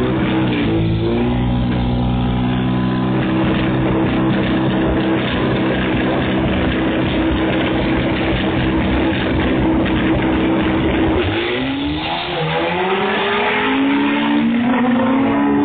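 Race cars' engines held at steady high revs on the start line, then launching about eleven seconds in and accelerating hard, the pitch climbing and dropping again through several gear changes.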